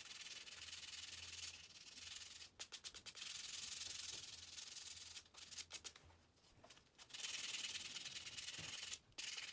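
Sandpaper rubbed by hand over the end of a turned wooden piece, a scraping hiss in three long stretches with brief pauses and a few quick strokes between them.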